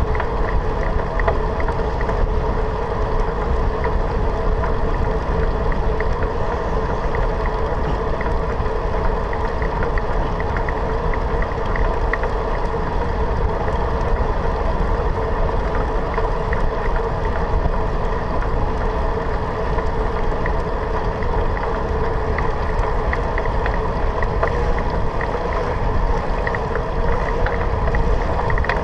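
Bicycle rolling steadily along an asphalt path, picked up by a GoPro Hero 3 mounted on the handlebars: an even, unchanging rumble of tyres on the road and air rushing past, with a steady hum running through it.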